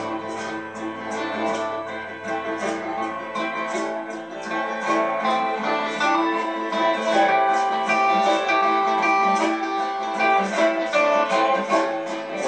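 Acoustic guitars strumming a steady rhythm in an instrumental passage, with no voice.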